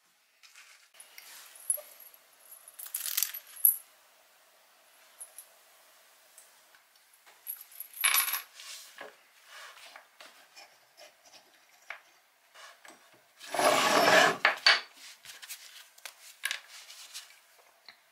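Small cut metal pieces clinking against each other and against a wooden workbench as gloved hands pick them up and set them down. There are scattered light clicks and knocks throughout, and a longer, louder scraping rustle about two-thirds of the way through.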